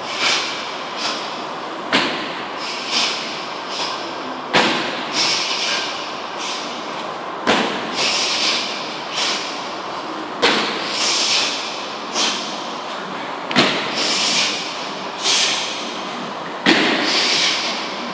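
Heavy training sandbag thudding about every three seconds over repeated lifts, with lighter knocks and short bursts of hiss in between, echoing in a large hall.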